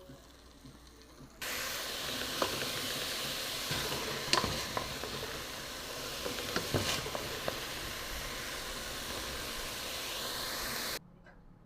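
Food sizzling in a hot pan: a steady hiss that starts suddenly about a second and a half in and cuts off sharply near the end, with a few clicks of a utensil against the pan.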